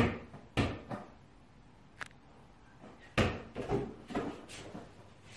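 A series of irregular knocks and thumps, about seven in all, with a sharp click about two seconds in.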